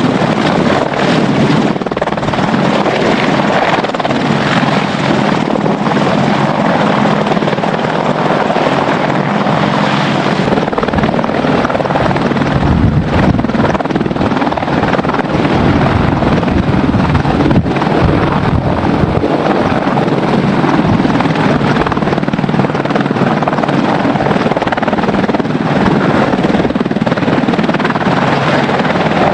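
AH-64D Apache Longbow attack helicopters running at take-off power as they lift off and hover low. Their four-blade main rotors and twin turboshaft engines make a loud, steady rotor thrum and turbine noise.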